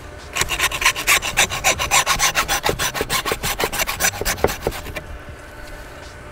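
A hand bone saw cutting into beef rib bones with quick, even back-and-forth strokes. It starts about half a second in and stops about five seconds in.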